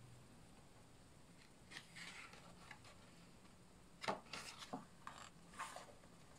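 Paper pages of a hardcover picture book being turned by hand: faint rustling about two seconds in, then a quick run of sharper page flaps and rustles from about four seconds in as several pages are leafed through.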